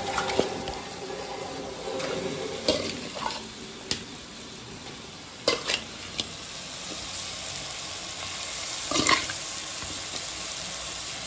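Metal spoon scraping and clinking against an aluminium bowl and pressure-cooker pan as marinated chicken pieces are stirred and tipped in, over a steady sizzle of onion-tomato masala frying in the cooker. The loudest clinks come about halfway through and again near the end.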